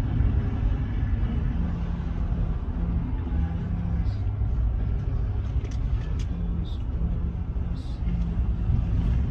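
Low, steady rumble of a vehicle engine running.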